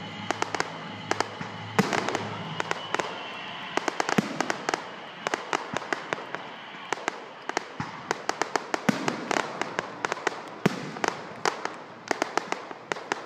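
Fireworks display: a dense, irregular run of sharp cracks and pops, many a second, with crackling between them.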